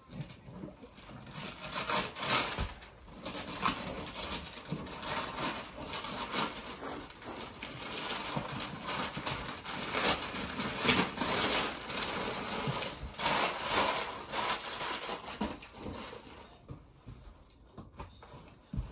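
Gift wrapping paper tearing and cardboard boxes being opened, a busy run of rustling, crinkling and crackling paper and card that thins out near the end.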